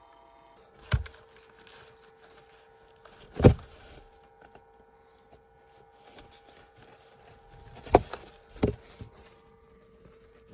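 Several dull knocks and bumps over a steady hum: one about a second in, the loudest about three and a half seconds in, and two close together near the end.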